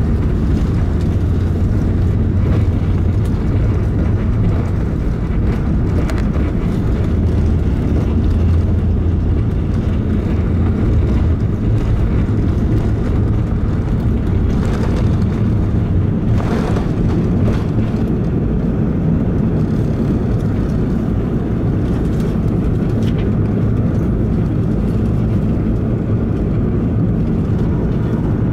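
Airbus A380 cabin noise on take-off: its four Rolls-Royce Trent 970 engines at take-off thrust, heard through the cabin as a steady loud roar. A low rumble underneath eases off about halfway through, and a few faint knocks come in the middle.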